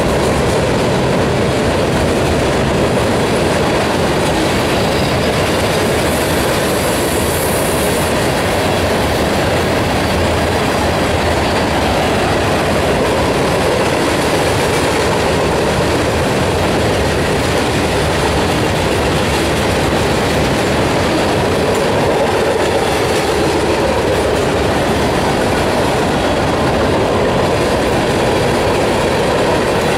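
Freight cars of a CSX train rolling past steadily, their steel wheels running on the rails in an even, continuous rumble.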